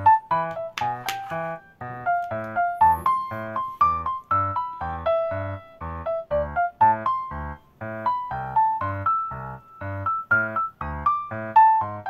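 Background piano music: a steady run of short melody notes over low bass notes.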